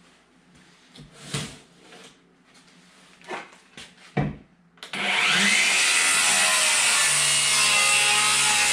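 A few knocks of boards being handled, then an electric power saw starts abruptly about five seconds in and runs loud and steady, cutting scrap wood.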